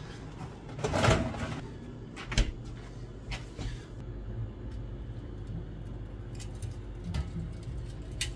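A refrigerator door being handled and a drink taken out, with a few knocks in the first few seconds, the loudest about a second in. Then an aluminium soda can is set down and rolled across a tiled floor, a steadier low rolling noise with faint clicks.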